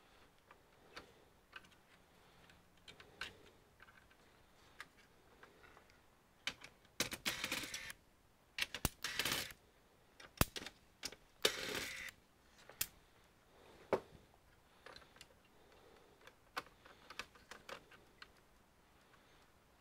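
Scattered small clicks and taps with a few short stretches of scraping and rustling, from hands and tools working the plastic parts, cables and connectors of an HP Pavilion all-in-one computer during disassembly.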